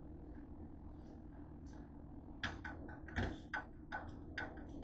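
A quick run of light clicks and knocks, about ten in two seconds starting about halfway in, as tater tots are picked off and shifted on a metal baking tray, over a steady low hum.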